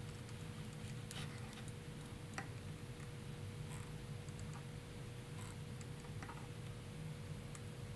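Faint scattered ticks as solder is melted onto a battery pad of an all-in-one ESC flight-controller board with a soldering iron, tinning the pad for the battery cable, over a low steady hum.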